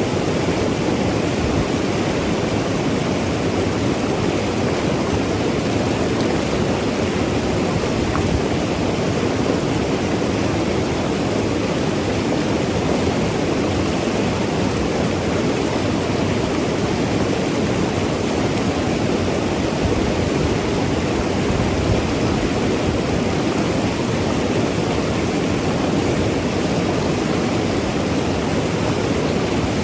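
Mountain river rushing and gurgling over rocks in a steady, unbroken wash of water noise.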